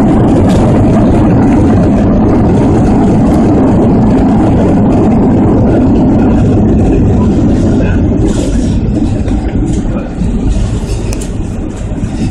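Loud steady roar inside a Boeing 737NG's cabin as the jet rolls along the runway after landing: engine noise and runway rumble, easing and turning more uneven over the last few seconds as the aircraft slows.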